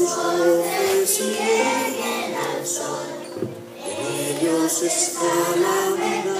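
A children's choir singing a Spanish-language song over an instrumental accompaniment with sustained notes.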